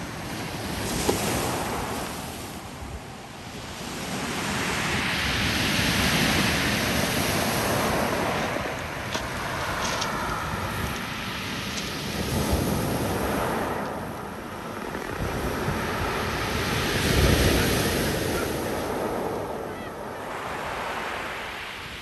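Sea waves breaking against rocks and washing over a pebble beach, the surf swelling and falling back in surges every few seconds.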